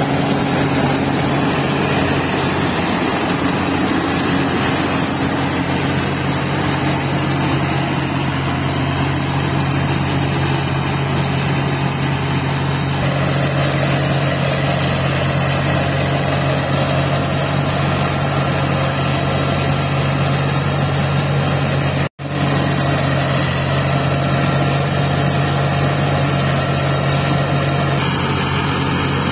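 Claas Crop Tiger 30 Terra Trac tracked combine harvester running steadily while cutting rice: a constant engine and machinery drone with a steady high whine above it. The sound cuts out for an instant about two-thirds of the way through.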